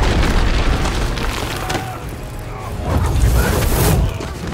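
Action-film sound mix of a bending fight: a deep rumbling boom under the score, then a rising rush of noise about three seconds in that swells and stops sharply, as a burst of fire flares up.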